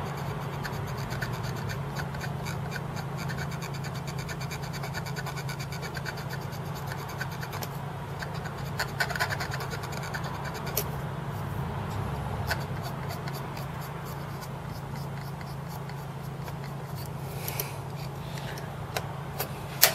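A swab rubbing and scratching against the read/write head of a Commodore 1541C floppy drive during head cleaning, in a run of small scrapes and ticks. The heads are suspected of being dirty because the drive will not read disks. A low steady hum runs underneath.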